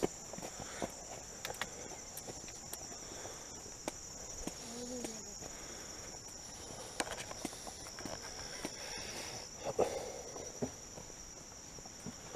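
Footsteps on a dirt forest trail, with scattered short clicks, over a steady high-pitched insect chorus.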